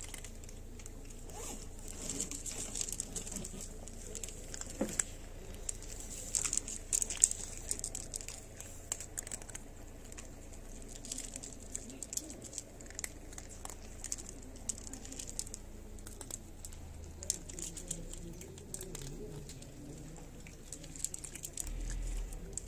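Cats eating dry kibble, chewing with a quick irregular run of small crunches and clicks.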